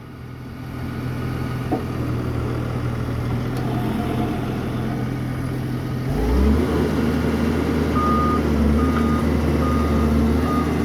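Doosan DX140W wheeled excavator's diesel engine running, building up over the first couple of seconds and revving higher about six seconds in. From about eight seconds a high alarm beeps four short times, like a travel or reversing alarm.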